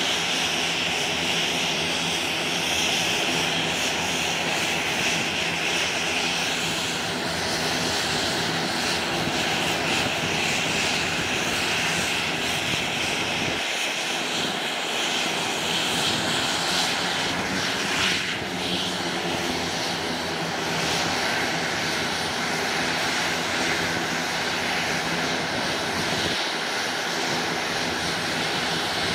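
Beech B100 King Air's twin Garrett TPE331 turboprop engines running steadily, propellers turning: a constant high turbine whine over a lower propeller drone.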